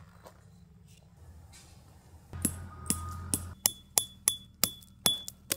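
A steel tent peg being driven into gravel: a stretch of scraping and knocks, then a run of sharp, ringing metal strikes about three a second, near the end.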